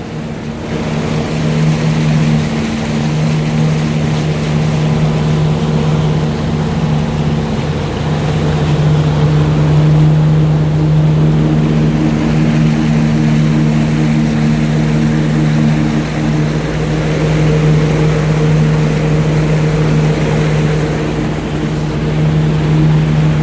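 Wake boat's inboard engine running steadily at wakesurf speed, a constant drone over a steady rush of noise.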